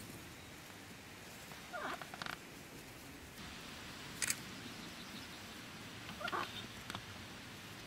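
Sheep grazing: short tearing sounds of grass being bitten off, about two seconds in and again about six seconds in, with a sharp click about four seconds in, over a faint steady hiss.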